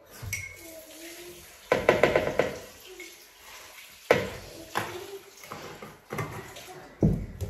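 Kitchen work at the counter: dishes and utensils clattering and knocking, with a sharp knock about four seconds in.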